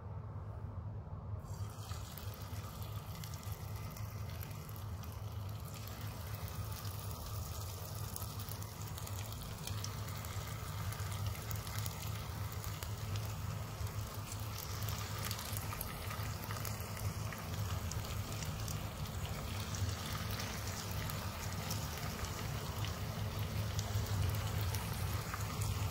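Vegetable Manchurian balls shallow-frying in hot oil in a pan: a steady sizzle that starts about two seconds in as the first balls go into the oil, with faint ticks and a low steady hum underneath.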